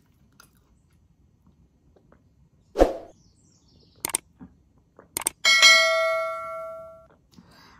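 Subscribe-button animation sound effect: two quick clicks, then a single bell chime that rings and fades away over about a second and a half. Earlier, a thump and a few small clicks while drinking from a plastic water bottle.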